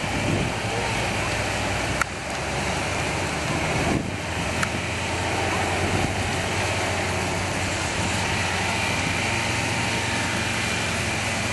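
Off-road Isuzu's engine running steadily with a constant low hum under a broad rushing noise, with two short sharp knocks about two and four seconds in.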